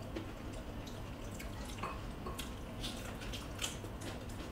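Close-miked eating sounds: wet chewing and lip smacks, with scattered small clicks.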